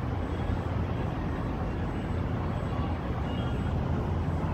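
Steady low rumble of city traffic noise, with no distinct bangs or voices standing out.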